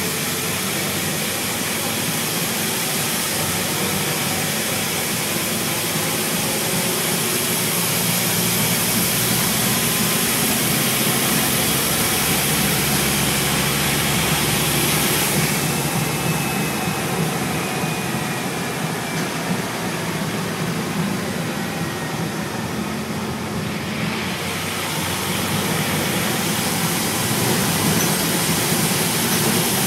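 Scania N230UB single-decker bus under way: its five-cylinder diesel engine running with steady road and tyre noise. Around the middle the high hiss eases off for several seconds and a faint falling whine is heard.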